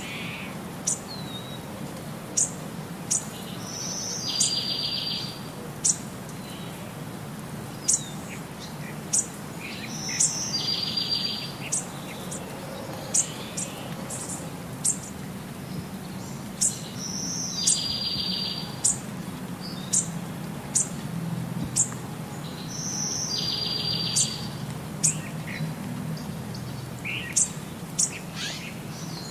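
Looped birdsong: short, high chirps about once a second and a buzzy trill that comes back about every six and a half seconds over a steady low background.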